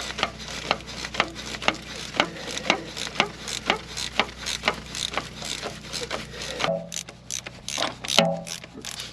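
Hand ratchet wrench clicking in short, uneven strokes, about two to three clicks a second.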